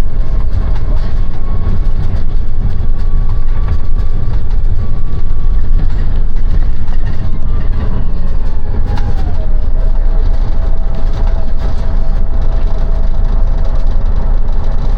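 City bus in motion, heard from inside: steady low engine and road rumble with a faint whine that slides down in pitch a little past halfway.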